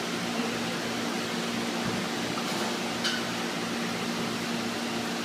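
Steady hum and hiss of running machinery, at an even level throughout.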